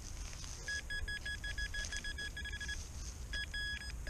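Handheld metal-detecting pinpointer beeping in quick, even pulses of about seven a second that speed up, then a few more beeps and a short steady tone near the end: the signal that rises in rate as the probe closes on a buried metal target.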